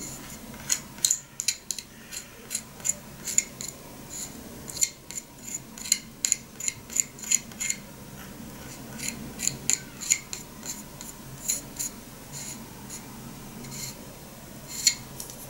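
Light, sharp finger taps on a tea container, shaking dry sencha leaves down into a funnel on a teapot, in irregular runs of about two to four taps a second with short pauses between.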